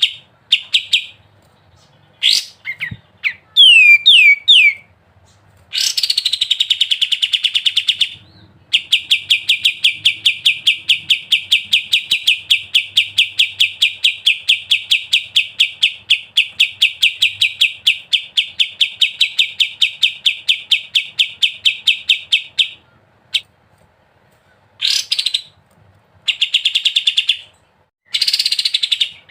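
Kapas tembak songbird singing: a few short notes and quick falling whistles, then a long rapid rattling trill of even, evenly spaced notes lasting about fourteen seconds (the 'ngebren' song), and short phrases again near the end.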